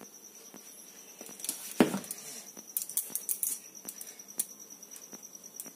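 Kitchen containers being handled: a white plastic flour tub and a steel bowl. There is one sharp knock a little under two seconds in, then a run of small irregular clicks and taps.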